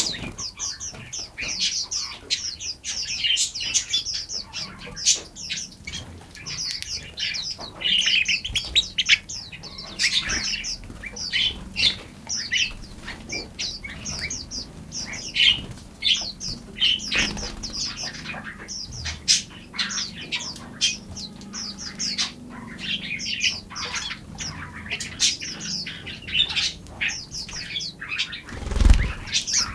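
Forest songbirds chirping and singing, a dense chorus of rapid short high notes. There is a low thump near the end.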